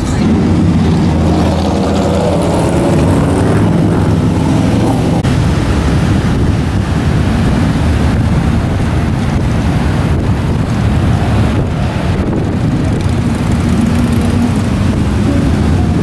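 Loud, steady din of road traffic thick with motorcycle engines, some revving and passing so their pitch rises and falls.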